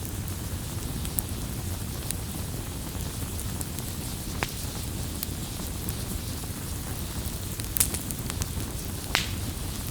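Campfire crackling: a steady low rumble of the burning fire with scattered sharp pops and snaps of wood, two louder pops near the end.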